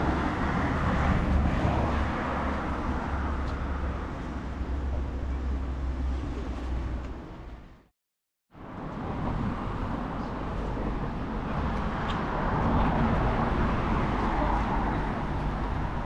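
Street traffic noise: a steady hum of passing cars with low rumble. It fades out to silence about halfway through, then fades back in.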